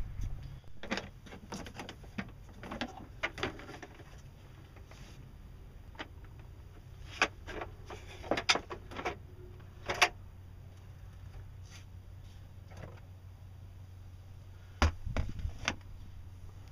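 Clicks and knocks from a Yamaha marine engine's plastic intake cover being unlatched, unscrewed and lifted off, with the air filter lifted out. A few scattered clicks at first, a louder cluster about halfway through, and more near the end, over a low steady hum.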